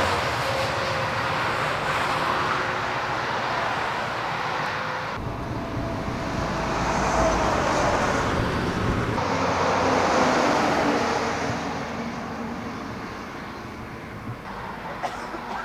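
Trucks driving past on a road, tyre and engine noise swelling and fading as each goes by. The sound changes abruptly about five seconds in, and the passes are loudest near the start and again around seven and ten seconds in.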